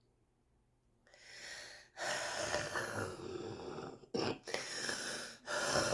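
A smoker's congested, wheezy breathing: a breath drawn in about a second in, then louder noisy breaths broken by two short pauses. The uploader takes this for airway congestion typical of chronic bronchitis.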